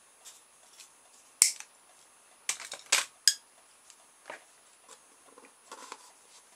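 A few sharp clicks and knocks from small hard plastic and metal parts handled and set down on a wooden workbench. The loudest knock comes about a second and a half in, with a quick cluster of clicks a second or so later.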